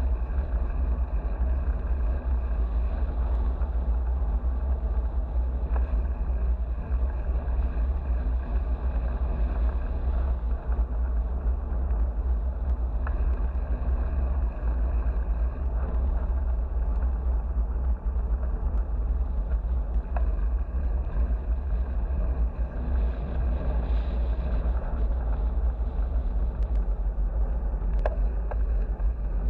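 Steady low rumble of wind buffeting and road noise on a bike-mounted action camera while cycling.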